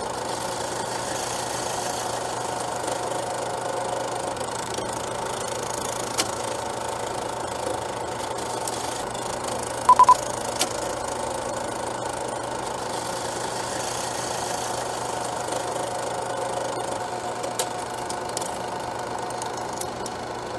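Film projector running with a steady mechanical whir and rattle. About ten seconds in come three quick, loud, high beeps of a film countdown leader, and a few faint clicks are scattered through.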